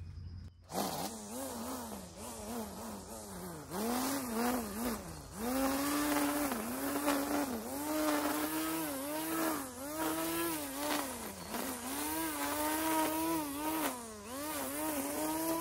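Electric string trimmer running, its motor pitch rising and falling again and again as it speeds up and bogs down. It starts abruptly about a second in.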